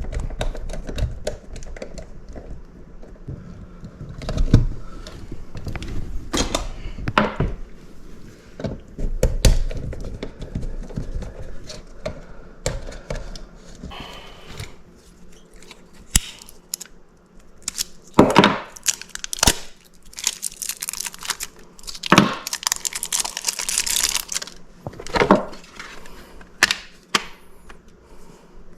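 Hand-work sounds of wiring a thermostat to its back plate: irregular clicks and knocks of plastic and small tools, with rustling and scraping, busiest about two-thirds of the way in.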